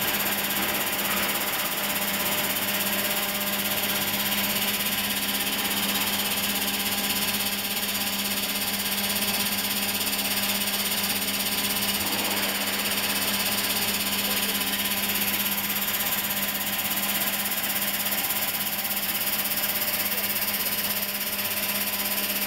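Mung bean peeling machine running steadily: a constant motor hum with the hiss of beans moving across its vibrating mesh sieve screens.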